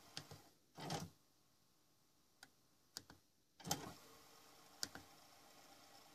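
Plastic front-panel buttons of a JVC KS-FX630R car stereo head unit clicking under the fingers: a few light ticks and two louder clicks, about a second in and near the four-second mark, over a faint hiss that drops away between them.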